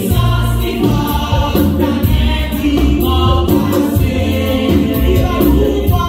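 Live gospel praise music: a woman sings lead into a microphone, with backing singers in harmony and electric bass guitar under a steady beat.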